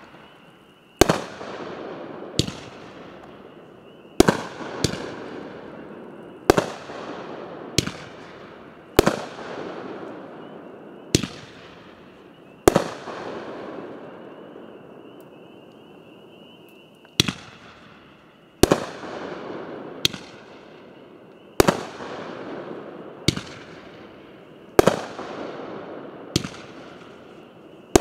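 Multi-shot firework cake firing aerial shells one after another: a sharp bang every one to two seconds, each fading out over a second or so, with a pause of about four seconds in the middle.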